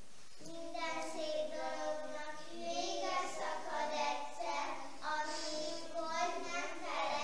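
Young children singing a song, with held notes that bend in pitch.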